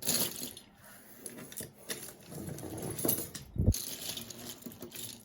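A tangled pile of costume jewelry being pushed around and sorted by hand: metal chains and beads clinking and rattling in irregular bursts, with a soft thump about three and a half seconds in.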